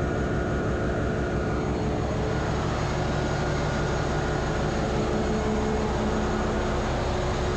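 Ship's engine-room noise: running diesel machinery gives a steady, fast-pulsing low rumble with a few steady hum tones over a wide hiss.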